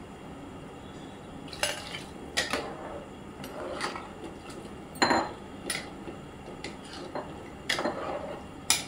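A metal spoon clinking and knocking against a cooking pot, a series of scattered sharp strikes with the loudest about five seconds in, over a steady low hiss.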